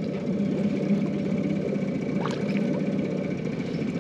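Outboard motor idling steadily, with one short click about halfway through.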